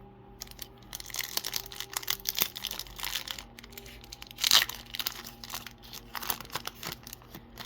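Foil Pokémon booster pack wrapper crinkling as it is handled and torn open, with a louder short rip about four and a half seconds in.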